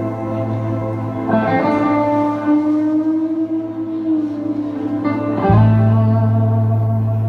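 Live band playing an instrumental passage on guitars, with held chords that change about one and a half seconds in and again about five and a half seconds in, where a strong low note comes in.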